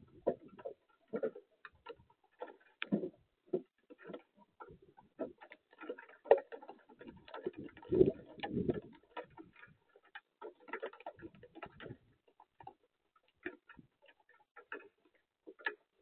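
Irregular light taps and ticks on a backyard bird-feeding platform, sparse and uneven, with a louder cluster about eight seconds in.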